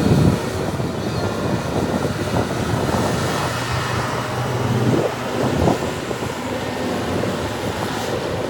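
Heavy diesel earthmoving machinery running steadily, with a few brief rising surges, the strongest about halfway through.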